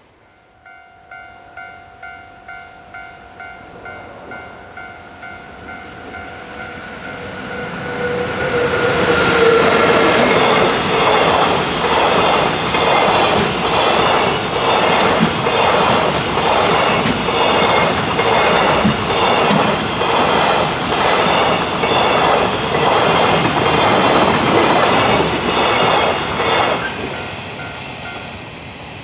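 Japanese level-crossing alarm bell ringing at about two strikes a second. Then a long freight train hauled by an EF81 electric locomotive passes at speed. Its wheels clatter over the rail joints in a steady rhythm for nearly twenty seconds before it fades away.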